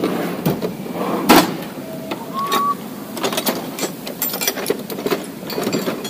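Metal tools being handled: irregular clinks and knocks, the loudest a knock about a second in, with a brief high tone a little past halfway.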